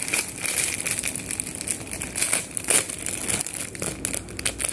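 Clear plastic bag of coloured foam clay crinkling as it is handled, a run of irregular crackles.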